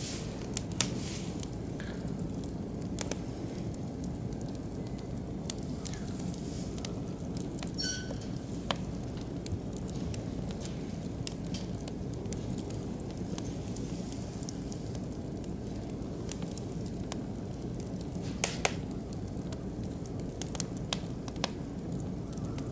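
Oak and beech wood fire burning steadily, crackling with scattered sharp pops, a few louder ones near the end; a brief high whistle sounds about eight seconds in.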